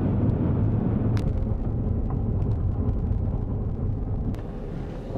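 A car driving, its engine and tyres making a steady low rumble heard from inside the cabin, easing off a little near the end.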